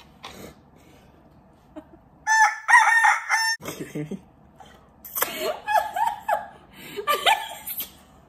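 Shrill, high-pitched laughter coming in bursts: a loud squealing run about two seconds in, then more rising and falling squeals and cackles from about five seconds on.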